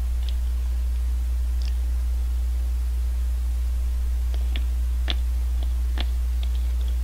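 A spoon clicking and scraping a few times against the inside of a plastic shaved-ice cup, most clicks in the second half, over a steady low hum.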